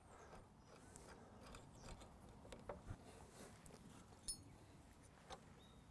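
Near silence with a few faint, scattered small metal clicks and taps from hands working on a reel mower's front roller fittings. There is one brief metallic ping about four seconds in.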